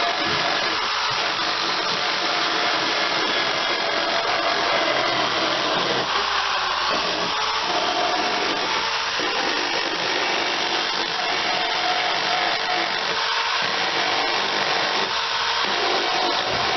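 Handheld electric power tool running steadily with a continuous whir, its load shifting slightly now and then.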